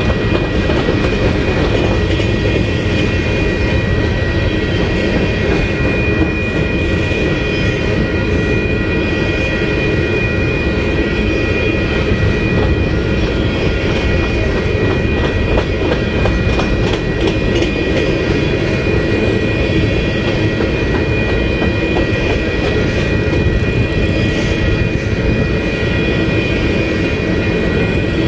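Empty covered hopper grain cars of a freight train rolling past at close range: a steady rumble of steel wheels on rail, with clicks over the rail joints and a steady high-pitched ring.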